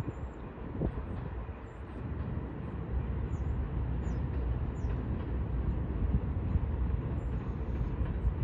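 Distant freight train of intermodal container cars rolling across a long stone arch bridge: a steady low rumble that grows louder about two seconds in.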